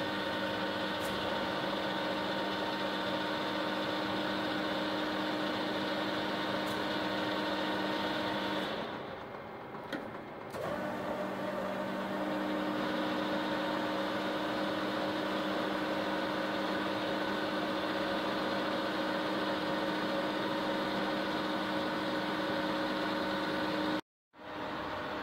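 TOS WH 80 horizontal boring and milling machine running, its spindle drive and gearbox giving a steady hum with a whine of several fixed tones. About nine seconds in the sound drops quieter for a couple of seconds, then picks up again. It cuts out abruptly near the end and comes back slightly quieter.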